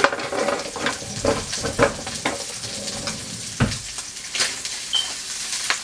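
Chicken sizzling as it fries in oil in a pan, with a utensil stirring it and clicking and knocking against the pan many times, one heavier knock a little past halfway.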